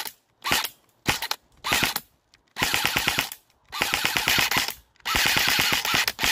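Airsoft rifle firing on full auto: four short bursts, then three longer strings of rapid shots, the last and longest running on to the end.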